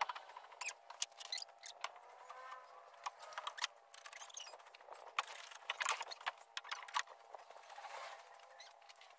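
Fast-forwarded hand-tool work on a wooden boat hull: a rapid, irregular patter of high-pitched clicks, taps and squeaky scrapes, raised in pitch by the speed-up.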